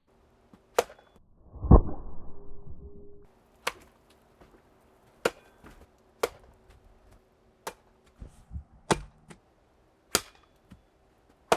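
A series of sharp chopping strikes, about eight of them, one every second or so. The second strike is heavier and deeper, with about a second and a half of rustle after it.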